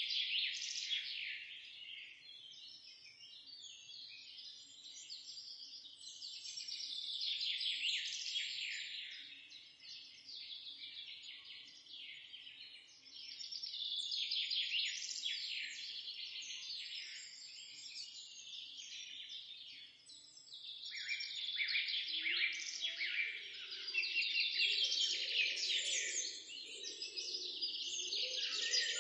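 Recorded songbirds chirping rapidly and without pause, the chorus swelling and fading in waves. In the last several seconds a fainter, lower sound joins underneath.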